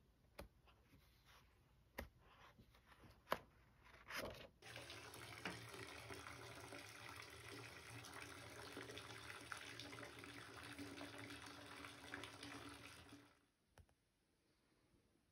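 Tap water pouring into a bathtub, a steady rush lasting about nine seconds that cuts off suddenly. Before it, a few sharp clicks as the pages of a paper planner are turned.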